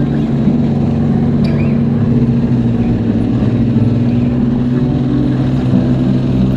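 ATV engine running at a steady, even pitch.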